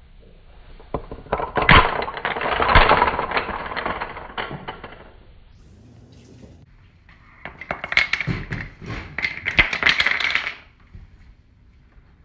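Wooden dominoes toppling one after another, clattering in a rapid run of clicks for about four seconds. After a short pause comes a second run of clattering about three seconds long.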